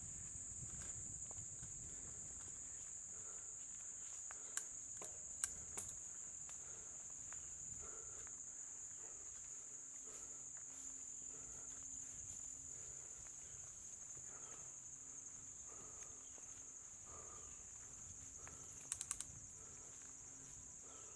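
Steady high-pitched chorus of crickets and other insects, over a low rumble. A few sharp clicks come about five seconds in, and a quick cluster of clicks near the end.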